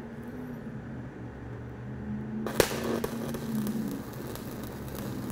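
Stick-welding arc with a 7018 electrode on steel plate: struck about halfway in with a sharp crack, then a steady crackling sizzle as the rod burns in and the bead is laid.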